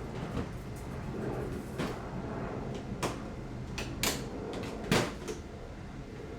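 Objects being handled: a series of knocks and clatters, several seconds apart, the loudest about five seconds in.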